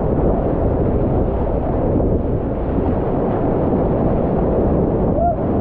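Loud, steady rush of a whitewater rapid on a river in full flow, heard up close from a kayak running through it.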